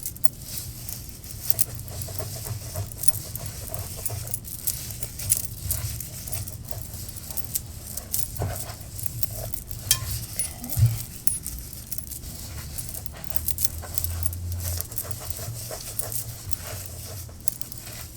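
Gloved hands working deep conditioner through hair close to the microphone: a steady run of small crackles and clicks over low rubbing, with a few louder knocks.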